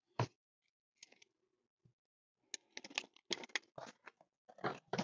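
Rubber floor mat being handled and laid into a car's footwell: a soft knock near the start, then from about halfway a quick run of scraping, crackling clicks.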